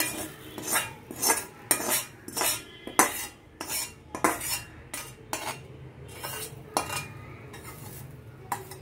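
A metal spatula scraping and tapping roasted grated coconut out of a metal kadai onto a stainless steel plate: a run of sharp metal-on-metal scrapes and clinks, about two a second, thinning out near the end.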